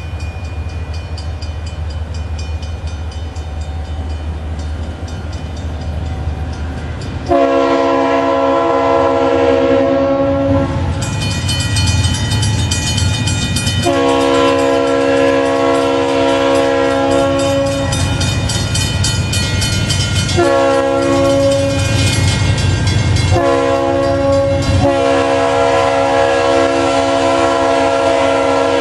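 BNSF diesel locomotive's multi-chime air horn blowing a series of long blasts with one short blast near the end: the warning for a grade crossing as the train approaches. Before the horn starts, about seven seconds in, there is only the low rumble of the approaching locomotive. A crossing bell dings steadily under it all.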